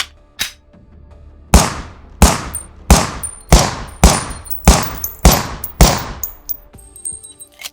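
Colt Model 1903 Pocket Hammerless .32 pistol: two quick mechanical clicks, then eight shots fired at a steady pace, about one every two-thirds of a second, each with a ringing tail. Light metallic clinks follow near the end.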